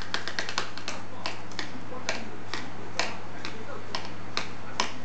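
A series of sharp clicks, quick and uneven for the first second, then about two a second, over a steady low hum.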